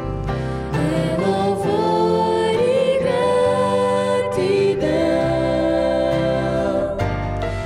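Four-voice vocal group singing long held notes in harmony over a band of keyboards, guitars and bass, in Portuguese Christian worship music.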